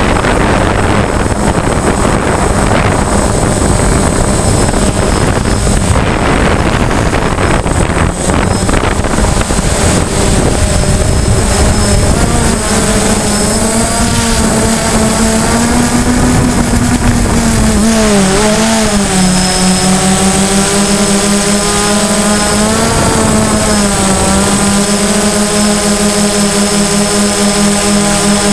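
DJI Phantom quadcopter's motors and propellers buzzing loudly close to the microphone in flight, with a rushing noise over them in the first half. From about halfway in the buzz wavers up and down in pitch as the motors change speed, then settles to a steadier hum.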